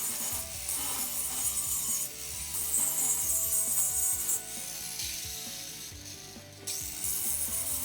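Angle grinder grinding down raised weld beads on steel square tubing: a harsh, hissing grind that eases off briefly about two seconds in and again for a couple of seconds past the middle as the disc's contact with the metal lightens.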